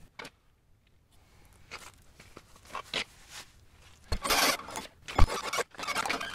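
Scraping and rubbing handling noises on the sawmill head, sparse at first and dense in the second half, with two dull thumps about four and five seconds in.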